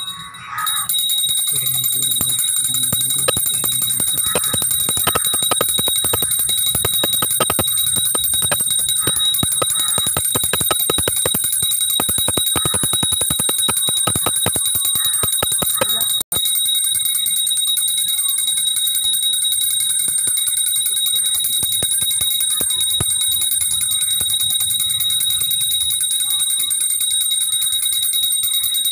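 Puja bell rung rapidly and without pause during the camphor-flame aarti, its high ringing tone held steady. There is a momentary break about sixteen seconds in.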